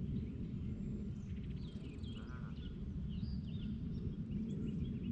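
Outdoor lakeside ambience: a steady low rumble with small birds chirping, and a crow cawing once about two seconds in.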